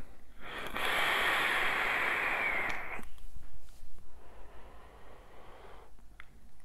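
A long drag on an e-cigarette: air hisses through the atomizer for about two and a half seconds. About a second later comes a softer, breathy exhale of vapour lasting about two seconds.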